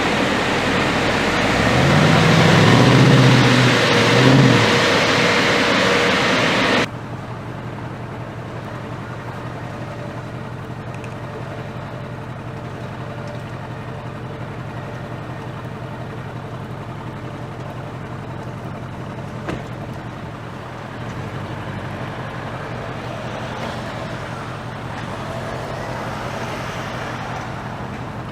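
Bentley Continental GT V8 S twin-turbo V8 with sports exhaust revving, its pitch rising and falling loudly. About seven seconds in the sound cuts suddenly to a steady, much quieter idle.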